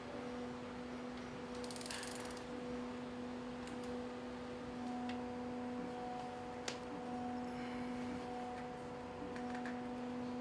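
A steady low hum, with a brief rasp about two seconds in and a few faint clicks, one sharper near the middle.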